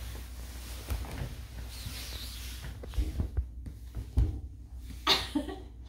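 A few soft, dull thumps and rubbing noises over a low steady rumble, with a brief short vocal sound near the end.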